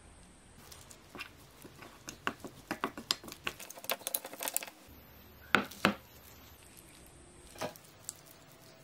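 Metal spoon clicking and scraping against a glass bowl while stirring a wet chilli masala paste: a quick, irregular run of small clicks, then a couple of louder taps.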